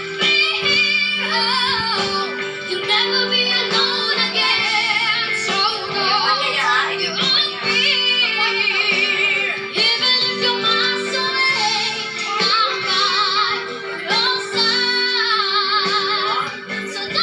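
A pop song playing: a woman's high singing voice with wavering vibrato over steady backing music.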